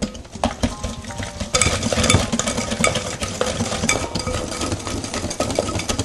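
Wire balloon whisk beating eggs into thick chocolate brownie batter in a glass mixing bowl: quick wet strokes with the wires clicking and scraping against the glass, getting louder and denser about a second and a half in.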